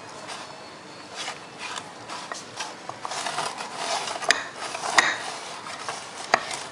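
A cup being turned and slid on a wooden tabletop, scraping and rubbing, with the two balls inside it rolling and knocking against its sides. A few sharp knocks stand out in the second half.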